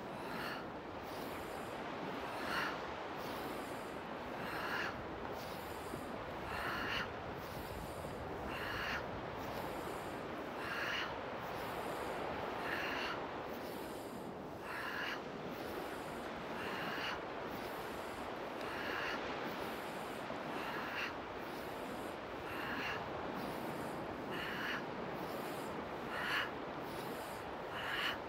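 A person breathing out hard through pursed lips, as if blowing out candles, in a steady rhythm of about one exhale every two seconds, in time with a bouncing, arm-swinging qigong warm-up. A steady hiss of surf and wind runs underneath.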